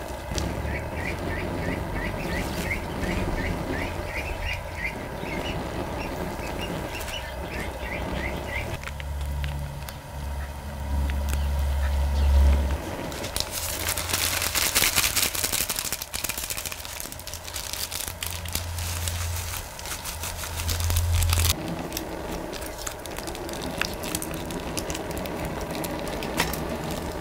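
Young ducks peeping, a rapid string of short high rising peeps over the first eight seconds or so. Later, a loud burst of rustling noise as seasoning packets are emptied into a pan of boiling water.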